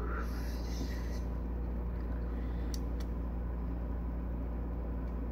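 Steady low background hum, with two faint clicks a little over halfway through.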